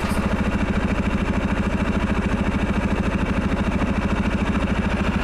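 Engine idling steadily with an even, fast throb.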